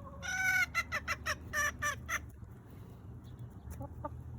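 Hen calling: one drawn-out call, then a quick run of short clucks that stop about two seconds in.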